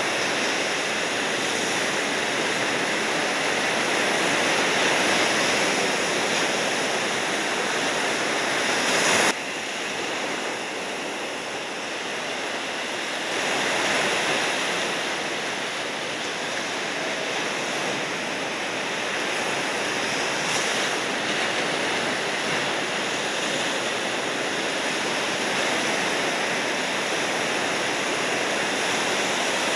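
Ocean surf breaking and washing in a continuous rushing noise, with an abrupt drop in level about nine seconds in.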